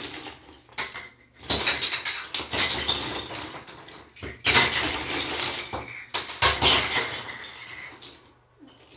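Handfuls of metal and plastic bottle caps clattering and rattling as they are dropped into a tub, in about six separate bursts.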